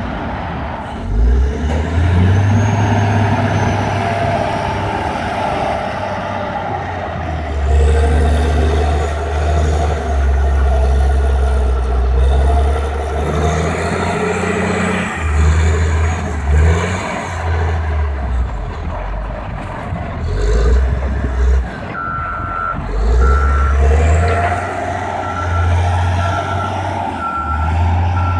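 Caterpillar 980G wheel loader's diesel engine running and revving up and down under load as it pushes into and lifts a pile of dirt. Near the end a reverse alarm beeps steadily, about once a second.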